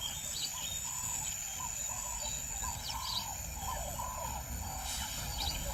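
Bush ambience: birds calling, one giving short repeated notes about two or three a second, with fainter high chirps over a steady low rumble.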